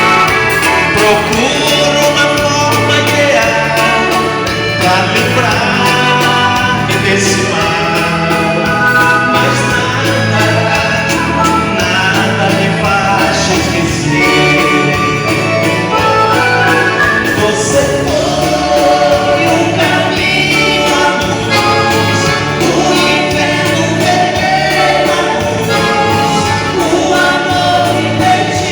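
Live dance-band music playing a waltz, with sung vocals over a steady bass accompaniment.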